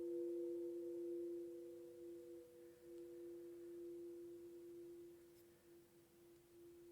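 Quartz crystal singing bowls ringing out after being played, two steady tones with a slow beating wobble, fading gradually.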